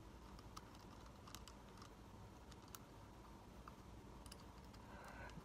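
Near silence with faint, scattered small clicks of metal parts being handled as a nut is threaded by hand onto a motorcycle starter motor's end cover.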